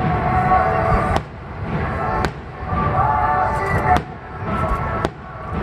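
Aerial firework shells bursting, three sharp booms about one to two seconds apart, over a steady bed of music and voices.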